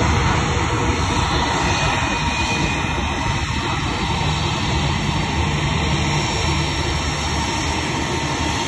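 Jet engines of an Airbus A320 taxiing close by at low thrust: a steady rumble with a faint whine, easing off slightly.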